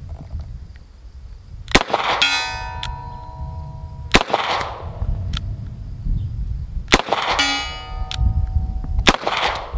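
Four .38 Special shots from a Rock Island Armory Model 206 two-inch revolver, spaced about two to three seconds apart. After the first and third shots a steel target plate rings out for about two seconds.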